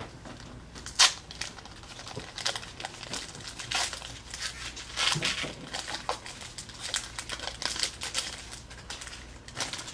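Pokémon trading cards being handled and flipped one by one in the hand: irregular crisp rustling and flicking of card stock, with a sharp snap about a second in.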